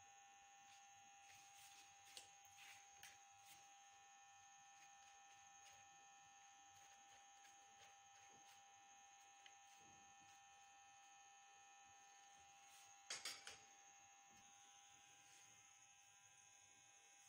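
Near silence with a steady electrical hum, broken by a few faint clicks and rustles; the loudest is a short cluster of clicks about thirteen seconds in.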